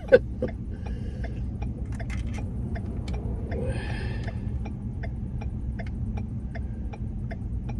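Van engine idling, a steady low rumble heard inside the cab, with a light regular ticking about twice a second and a brief rustle near the middle.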